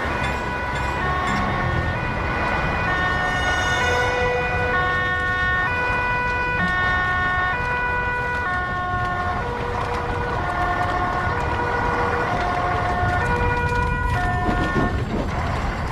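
Several two-tone fire engine sirens sounding at once, each stepping back and forth between a high and a low note and out of step with the others, over a steady low rumble.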